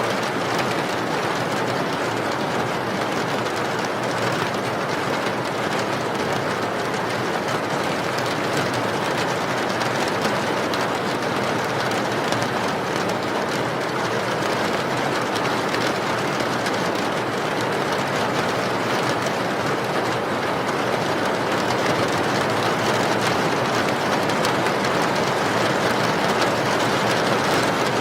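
Steady rain, an even unbroken hiss at a constant level.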